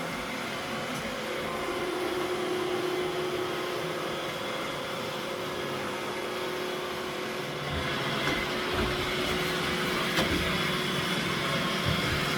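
Roomba robot vacuum running with a steady motor hum and whir, with a few soft knocks and a sharp click in the second half.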